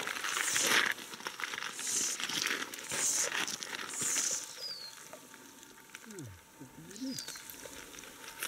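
A small hooked fish splashing at the water's surface as it is played in, in short splashy bursts about once a second, dying away after about four seconds.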